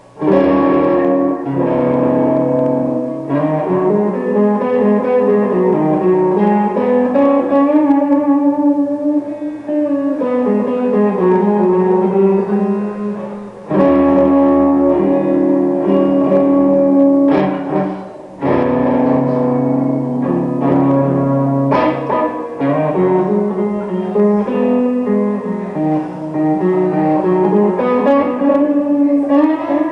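Solo guitar playing a slow blues improvisation, with chords struck and left to ring. Fresh chords are struck about 14 and 18 seconds in.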